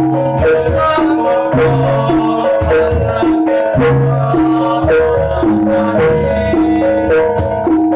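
Jaranan accompaniment music: a gamelan-style ensemble of tuned gongs and metallophones with percussion, playing a steady repeating pattern.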